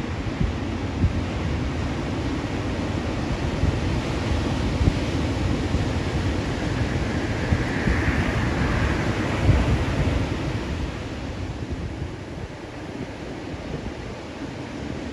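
Ocean surf breaking and washing up the beach, with wind buffeting the microphone. The surf's hiss swells about halfway through, then the sound eases toward the end.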